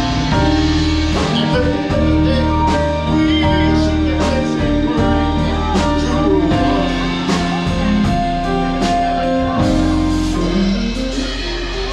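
Live band playing a slow song, with bass, keyboard or guitar chords and regular drum hits, in a passage without words.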